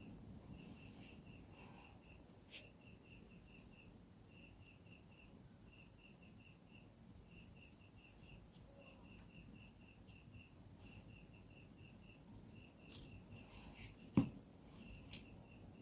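A cricket chirping steadily, short trills of a few pulses about once a second. Three sharp clicks sound near the end.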